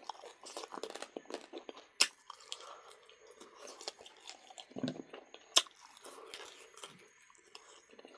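Close-up chewing and crunching of duck meat, with many small irregular mouth clicks and two sharp, louder crunches, about two seconds in and about five and a half seconds in.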